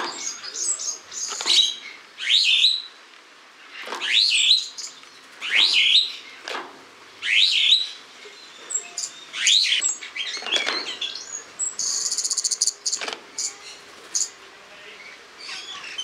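Superb starling (Spreo starling) calling: a string of loud, shrill whistles that sweep up and down, one every second or two, broken about three quarters of the way through by a fast, buzzy rattling trill.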